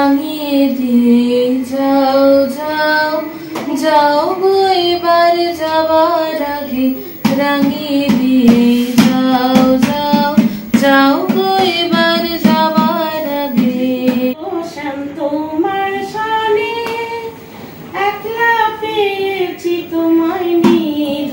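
A woman singing a Bengali song unaccompanied, in long held notes that glide up and down, with sharp taps sounding through it.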